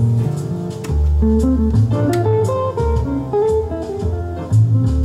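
Guitar-led music with a bass line, played back from tape on an Akai 4000DS Mk2 reel-to-reel deck that has just been started in play.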